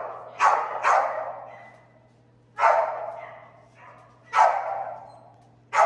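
A dog barking five times in the hall: two sharp barks close together, then three more about two seconds apart. Each bark echoes and fades over about a second.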